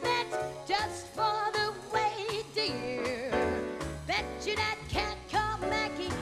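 Female jazz vocalist scat singing, short quick wordless notes with some vibrato, over a jazz band with bass notes beneath.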